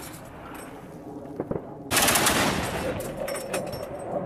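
Truck-mounted ZU-23-2 twin 23 mm anti-aircraft autocannon firing a long burst that starts about two seconds in, after a short lull.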